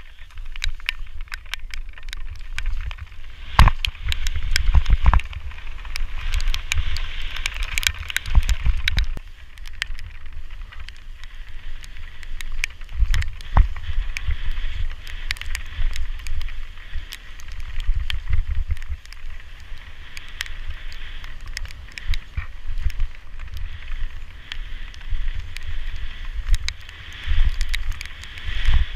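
A Giant Reign full-suspension mountain bike running fast down a dry dirt trail, heard from the rider's helmet: wind buffeting the microphone in low rumbling gusts, a steady hiss of tyres on loose dirt, and frequent sharp knocks and rattles as the bike hits bumps and landings.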